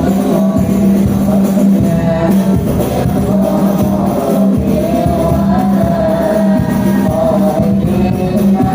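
A child's high voice singing an Islamic devotional song in praise of the Prophet, over music with tambourine-like percussion and a steady low drone.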